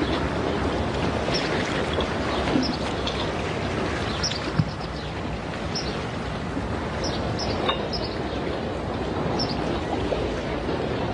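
Steady rushing outdoor ambience of wind and sea surf, with short high bird chirps every second or so and a single soft knock about four and a half seconds in.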